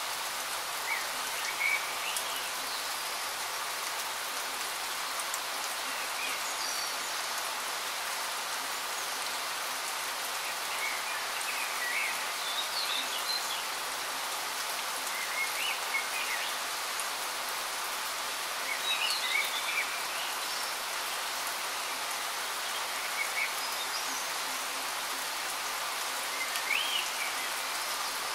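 Steady rain, a continuous even hiss, with short high chirps coming through every few seconds.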